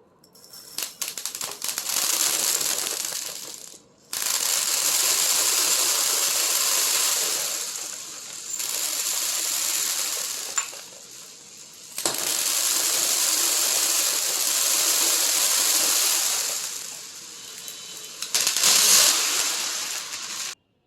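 Many glass marbles and beads pouring and clattering against one another, a dense hard rattling in several runs of a few seconds each with short breaks between them, cutting off sharply near the end.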